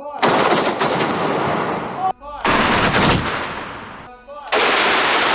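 Giant balloons bursting, three loud bangs about two seconds apart, each with a long echo that dies away through the arena.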